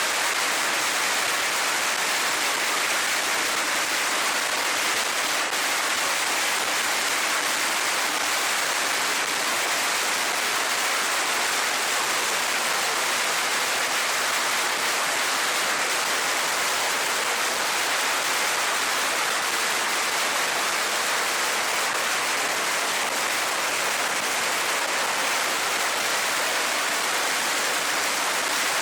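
A long string of Chinese firecrackers going off in one continuous, dense crackle, so rapid that the bangs merge into a steady roar-like hiss.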